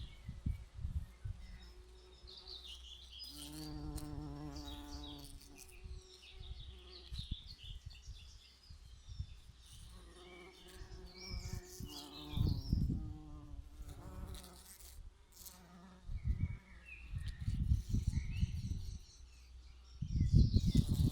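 Bees buzzing in flight, with a buzz that swells as one passes close twice, first about three seconds in and again around ten seconds. Birds chirp in the background, and intermittent low rumbles grow stronger near the end.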